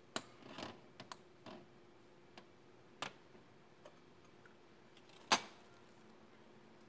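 Irregular metallic clicks and clinks of automatic-transmission clutch drums and plates being handled and set down on a steel bench, with one louder clink that rings briefly about five seconds in.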